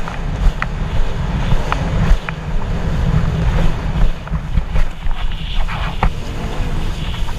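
Jet ski running at speed across open sea: heavy wind rumble on the microphone over the rush of water and spray, with a few sharp knocks as the hull meets the chop.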